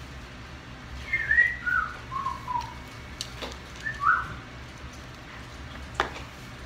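Someone whistling a short run of falling notes, then one more brief note; a sharp click near the end.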